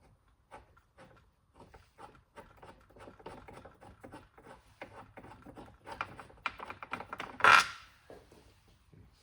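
Ratchet from the Jeep Gladiator's factory toolkit clicking as it loosens the door-mirror mounting bolts. The clicks come faster and louder as it goes, with one louder clatter about seven and a half seconds in.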